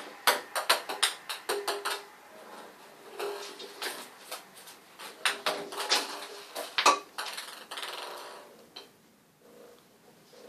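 Cats' claws and paws skittering and scrabbling on a bathtub: quick, irregular runs of clattering knocks. They are densest in the first two seconds and again around six to seven seconds, and die down near the end.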